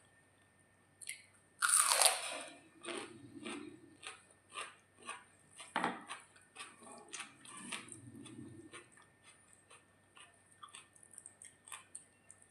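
A person biting into crunchy food with a loud crunch about two seconds in, then chewing it with a run of small crunches and wet mouth clicks.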